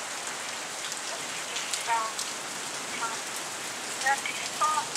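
Steady rain falling, with a few sharp drips splashing close by.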